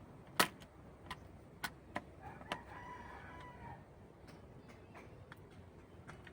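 Sharp clicks and taps from handling screws and the casing while reassembling an LED TV, the loudest about half a second in. A rooster crows in the background for about a second and a half, around the middle.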